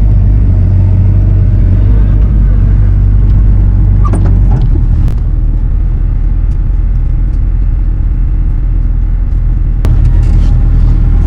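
Diesel engine of a Bobcat compact machine running steadily under work, its level dipping slightly about four and a half seconds in, with a few short knocks.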